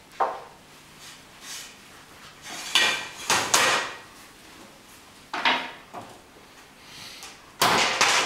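Kitchen handling noise: irregular clatters and scrapes of dishes, utensils and a metal tray, with a cluster around three seconds in and the loudest clatter near the end.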